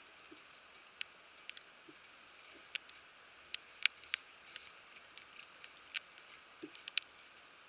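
Wood campfire crackling: irregular sharp pops and snaps, one or two a second, over a faint steady hiss.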